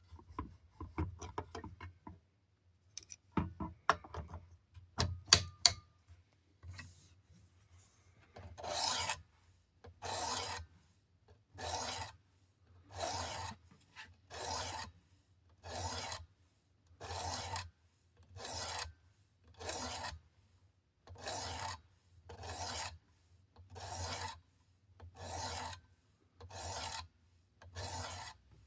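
Abrasive stone of a Work Sharp Precision Adjust guided sharpener being drawn across an OTF knife's edge in slow, even rasping passes, about fifteen strokes roughly a second and a half apart, while the bevel is set before moving up to 600 grit. Before the strokes begin there are a few sharp clicks and knocks.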